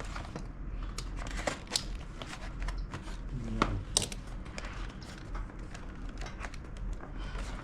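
Packaging of a parcel being opened by hand: plastic wrapping crinkling and tearing in a run of irregular small crackles and clicks.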